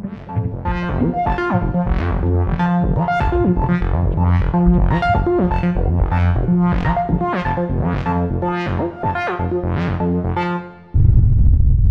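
Synthesizer intro music: a keyboard-like note struck about every two-thirds of a second over a held bass. Near the end the music cuts off and a sudden loud, deep rumble takes over.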